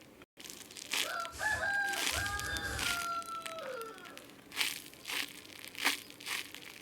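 A long pitched squeal from a squeezed squeaky toy, held about two seconds and then sliding down in pitch as it dies away, with crinkling plastic packaging before and after.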